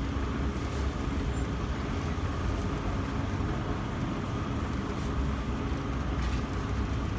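Steady low rumble of street noise, traffic and machinery, with a faint steady hum above it and a few faint clicks.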